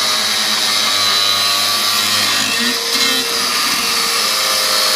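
A power tool running steadily, giving a high hiss with a thin whine over it.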